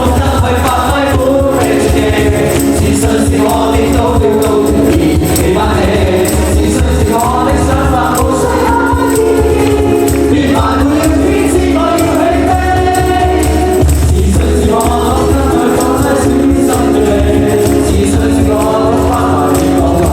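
A live band playing a song, with sung vocals over a steady bass line.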